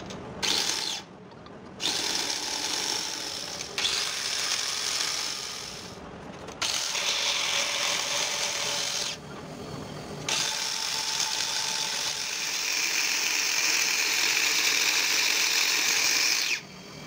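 Hand-held power valve seat grinder spinning its stone in the valve seats of a diesel cylinder head: a high grinding whine in several runs with short pauses between them, the last run the longest and ending abruptly shortly before the end.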